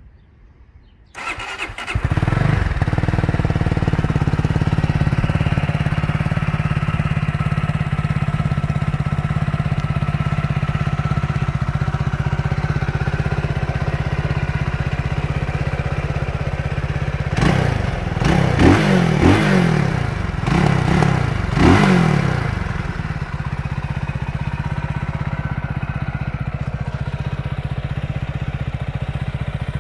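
Benelli Leoncino 250's single-cylinder engine started, catching about a second in, then idling steadily. A little past halfway it is revved in a quick series of throttle blips, each rising and falling in pitch, before settling back to a steady idle.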